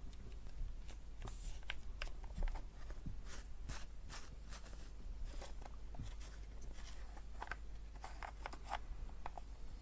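Plastic e-liquid bottle handled close to the microphone while its cap is worked: scattered small clicks, taps and crinkles of plastic.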